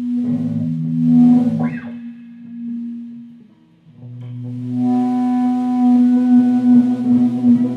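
Amplified hollow-body electric guitar sustaining a droning note with overtones, with an upward slide about two seconds in. The sound fades almost to nothing around three and a half seconds, then swells back into held, ringing notes.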